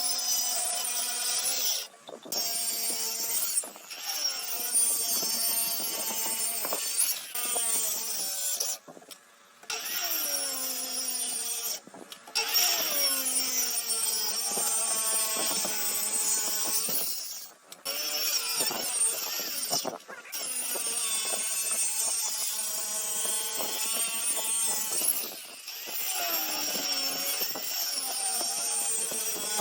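Wood being sawn or rubbed by hand, with squealing pitched tones that bend up and down as the strokes go. Several short takes are cut together, with brief breaks between them.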